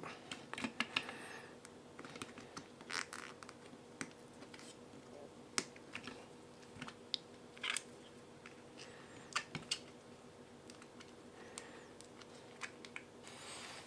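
Irregular small clicks, taps and scratches of fingers fitting small hardware into a 3D-printed plastic camera mount on a carbon-fibre quadcopter frame, over a faint steady hum.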